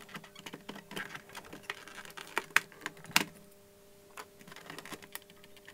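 Light clicks and taps of hard plastic parts being handled: the detachable tilt supports and plastic case of an Amstrad NC100 notebook computer. The clicks come thick in the first half, with two sharper ones near the middle, then thin out.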